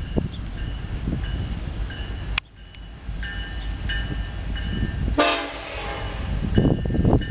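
Diesel freight locomotive's air horn sounding one blast of about a second and a half, starting about five seconds in. Under it, a grade-crossing bell keeps dinging and a low rumble runs.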